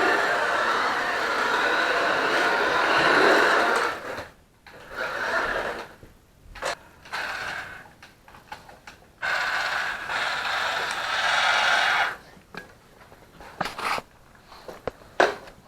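Small electric motor and gears of a BMW i8 RC toy car running in bursts: one run of about four seconds, then several shorter starts and stops, the longest about three seconds, with a few clicks near the end.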